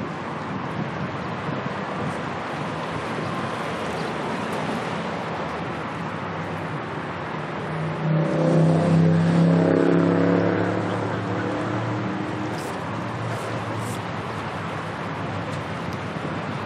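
Steady wind noise on the microphone, with an engine passing close by about halfway through, louder for about three seconds before fading.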